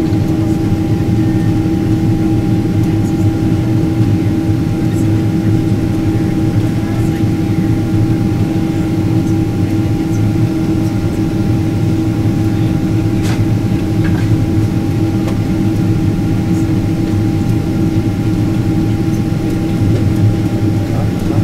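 Steady engine and airflow noise inside the cabin of a Boeing 777-200ER airliner descending on approach, an even, loud rush with a constant low hum and a fainter higher tone above it.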